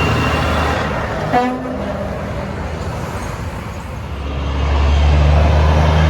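Heavy trucks driving past. One truck's low engine rumble fades away, a very short horn toot comes about a second in, and then another truck's engine rumble grows louder as it approaches.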